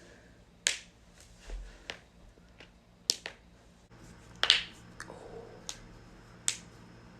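Joints cracking: a series of sharp pops, unevenly spaced, the loudest a little past the middle.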